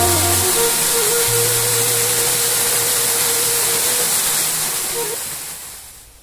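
Small waterfall splashing into a rocky pool, a steady rushing hiss, with soft background music held underneath; the water sound fades out near the end.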